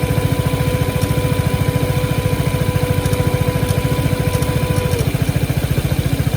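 Vespa GTS 300 HPE's single-cylinder four-stroke engine idling with an even, rapid low pulse. A steady whine runs alongside it and stops about five seconds in, dipping slightly in pitch as it goes.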